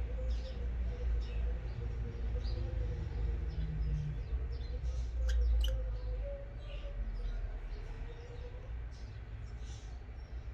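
Pet budgerigars giving soft, scattered short chirps and tweets, over a steady low rumble.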